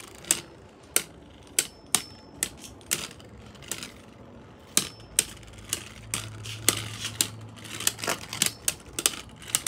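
Beyblade Burst Pro Series tops, Brave Valtryek against Roar Balkesh, spinning in a plastic Hasbro stadium and clashing, giving sharp irregular clicks as they strike each other and the stadium walls. A low steady hum joins in about six seconds in.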